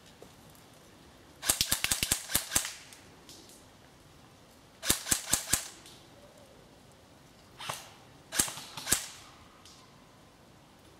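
Airsoft rifle firing sharp, rapid shots in short bursts: about eight shots in quick succession about a second and a half in, a burst of about five near the middle, then a single shot and a pair of shots later on.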